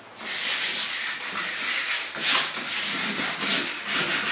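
Sandpaper rubbed by hand across a fiberglass door in repeated back-and-forth strokes, about two a second, scuff-sanding the old stain and polyurethane finish smooth before priming.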